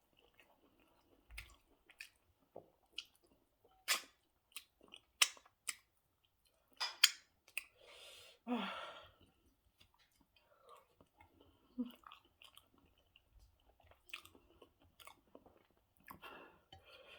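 Close-miked chewing and smacking of a mouthful of rice and goat meat stew, with irregular wet clicks and a few louder bites.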